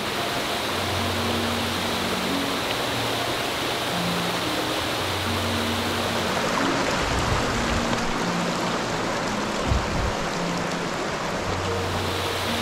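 Mountain stream rushing over rocks, a steady water noise, under soft background music of held notes. A brief low thump about ten seconds in.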